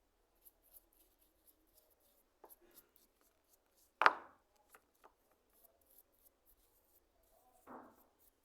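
Handling noises of a hand plane and tools on a workbench: scattered light clicks and taps, one sharp knock about four seconds in and a softer thud near the end.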